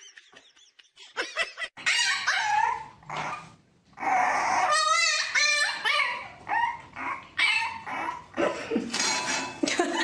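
Dogs whining and yipping in a string of short, high calls that rise and fall in pitch, with a fast warbling whine about halfway through.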